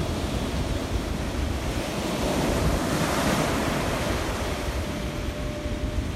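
Ocean surf breaking and washing up the beach, swelling louder a couple of seconds in, with wind buffeting the microphone.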